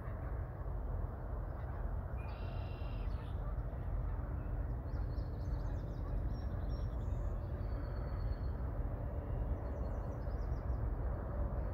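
A steady low rumble, like wind on the microphone, with birds calling over it: a buzzy call about two seconds in, then scattered high chirps and short calls later.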